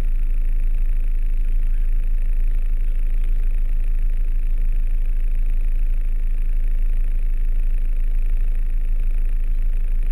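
VW T3 Syncro van's engine running steadily, a low even drone heard from inside the cab.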